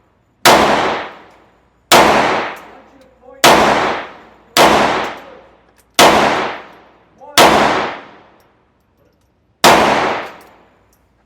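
Glock G44 .22 LR pistol firing seven single shots, one to two seconds apart. Each report rings out and echoes away for about a second.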